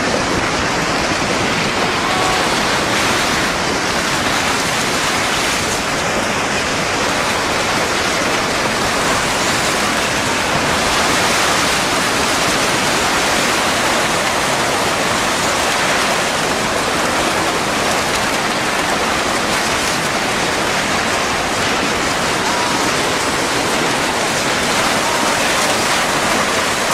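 Steady, loud rushing water, with no breaks or single impacts.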